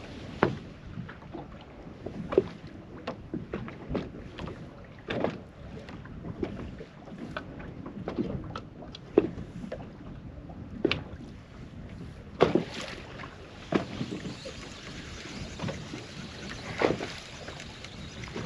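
Small boat on open water: irregular knocks and slaps against the hull every second or two over a steady rush of water and wind on the microphone.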